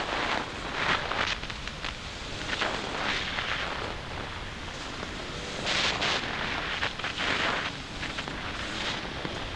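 Wind buffeting a helmet-mounted camera's microphone during a dirt bike ride, a rushing hiss that comes in gusts, with no clear engine note standing out.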